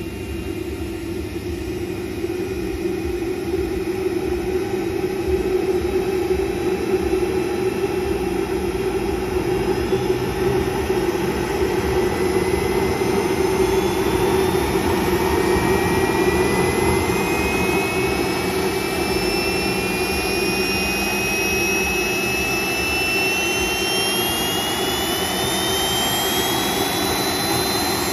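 Twin electric ducted fans of a Mibo A-10 model jet running on a first engine test, with a jet-like rush building over the first several seconds. From about halfway through, a high whine climbs steadily in pitch, heard as two close tones from the two fans turning at slightly different speeds as they are throttled up.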